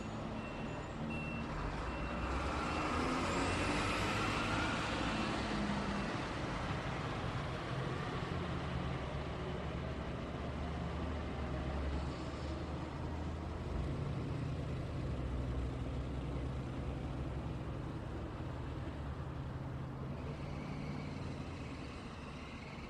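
Road traffic: heavy vehicle engines running with steady tyre noise, one vehicle passing loudest a few seconds in. An evenly repeating beep sounds for the first couple of seconds.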